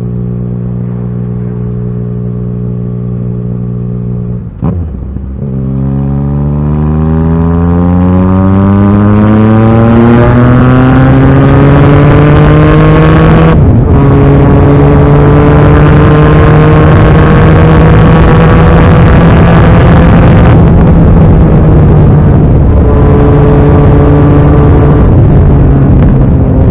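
Yamaha XSR900's inline three-cylinder engine under way, first holding steady revs, then, after a brief break about four and a half seconds in, pulling hard with the revs climbing for several seconds. A quick gear change about halfway through, then it holds a steady higher engine note.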